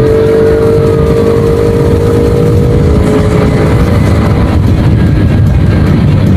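Honda Wave 110i's single-cylinder four-stroke engine running while riding, its intake made louder by a drilled air box with the filter element removed, over heavy wind rumble on the microphone. The engine's steady hum fades after about three and a half seconds, leaving mostly wind.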